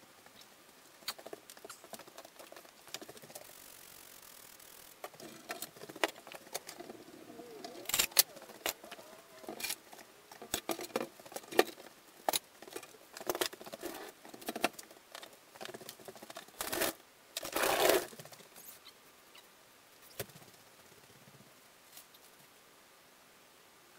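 Irregular clicks, taps and light knocks of objects being handled, with a scraping rush lasting about a second roughly two-thirds of the way through; quieter, with only scattered ticks, at the start and end.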